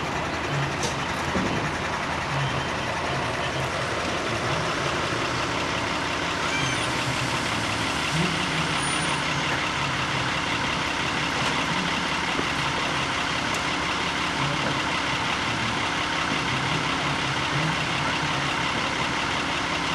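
A motor engine running steadily at a constant speed.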